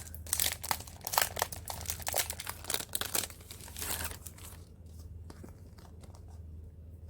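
Plastic packaging crinkling and tearing as a pack of paper supplies is opened, a dense crackle for about four and a half seconds that then thins to a few light rustles.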